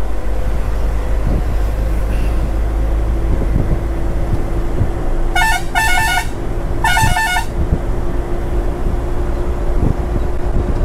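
Pickup truck engine running steadily under load on an uphill climb, with a vehicle horn honking three short times about halfway through.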